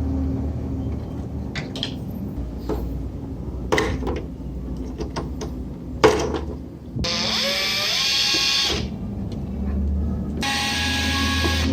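A small handheld electric tool runs in two bursts, the first spinning up with a rising whine and loud hiss, the second steadier. Before them come handling knocks and clatter, the loudest a sharp knock about 6 s in.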